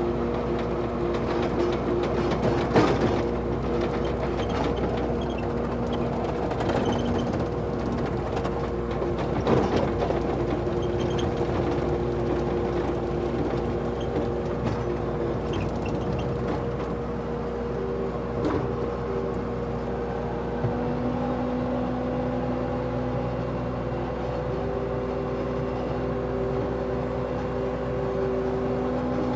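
Bobcat T750 tracked skid steer's diesel engine running steadily while the machine is operated, its pitch stepping up about two-thirds of the way through, with a few clunks along the way.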